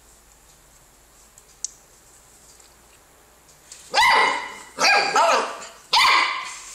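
A puppy barking: three short, high-pitched barks in the second half, close together, after a few quiet seconds.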